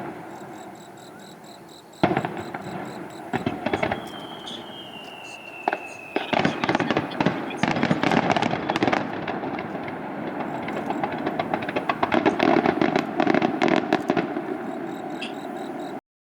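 Fireworks finale: sharp shell bursts at about two, three and a half and six seconds, then a dense, continuous crackle of many bursts for the last ten seconds before the sound cuts off suddenly. A thin falling whistle runs for about two seconds in the middle.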